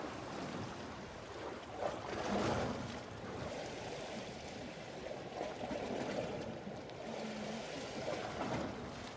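Calm seawater lapping and washing, a steady wash with a few louder swells.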